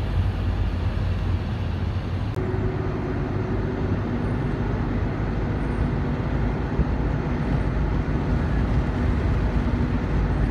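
Steady road rumble of a car driving, heard from inside the cabin: tyre and engine noise, deepest at the low end. About two seconds in, the sound changes abruptly at an edit, and a steady low hum runs on after it.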